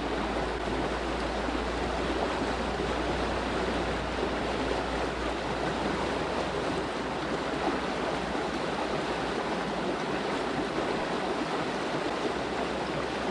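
Small river's water running steadily, a constant even rush.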